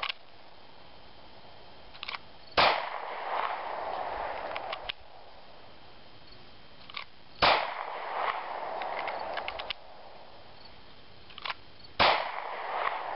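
Three single shots from a semi-automatic pistol, about five seconds apart, each fired straight off a draw from a belt holster. A faint click of the draw comes about half a second before each shot.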